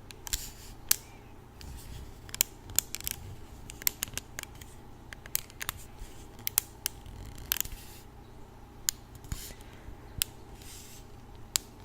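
Hairbrush handled close to the microphone for ASMR: bristles and handle giving irregular sharp clicks and ticks, with a few short scratchy strokes.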